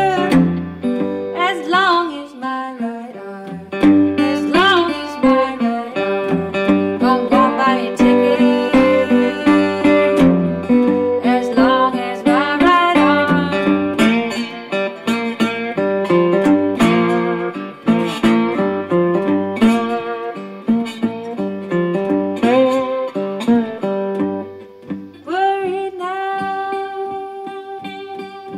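Blues played on a metal-bodied resonator guitar: picked notes and chords, with some notes gliding in pitch.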